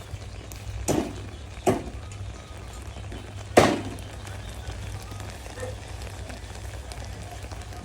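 Food sizzling on a grill, with three sharp knocks, the loudest about three and a half seconds in.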